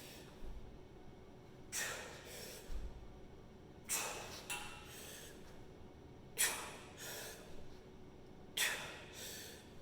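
A man's forceful breaths of exertion in pairs: a strong, sharp breath and a weaker one about half a second later, repeating about every two and a half seconds, four times.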